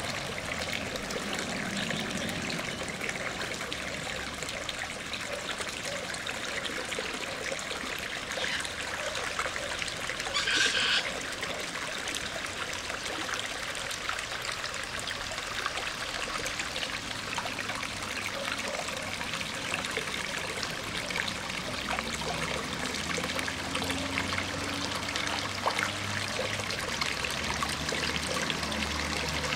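Small creek trickling and splashing over rocks, a steady flickering water sound. There is one brief louder burst of noise about ten seconds in.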